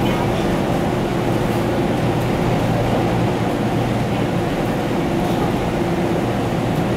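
Steady running noise inside a 489 series electric limited express carriage travelling at speed: an even rumble of wheels on rail with a steady hum.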